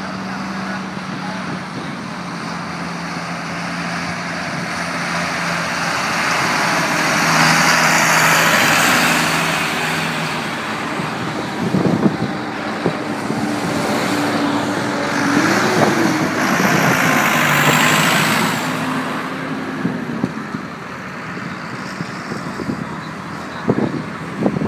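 Diesel engines of large farm tractors and a school bus driving past one after another, the sound swelling as each vehicle passes. About two-thirds of the way through one engine briefly rises and falls in pitch.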